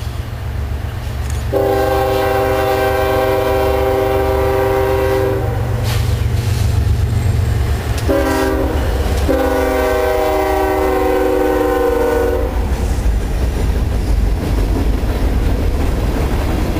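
Freight train's lead locomotive, a GE ES40DC diesel, sounding its air horn on approach: one long blast starting about a second and a half in, then about eight seconds in a couple of short blasts and another long blast of about three seconds. Under the horn the diesels run with a steady low rumble, and near the end freight cars rattle past.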